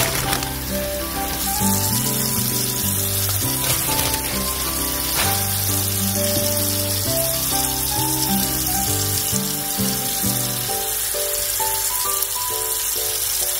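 Tap water running in a steady stream onto wet spinach leaves in a plastic colander basket while hands turn the leaves over. Background music with a melody and a bass line plays along; the bass drops out near the end.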